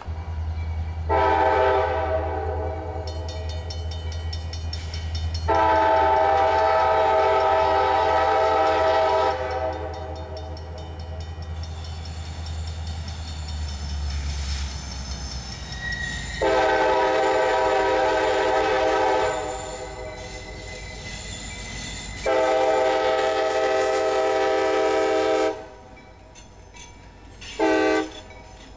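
CSX diesel locomotive's air horn sounding a series of long blasts and a short one near the end, a grade-crossing signal, as the train with two inspection cars approaches and passes. A low rumble runs under the first half.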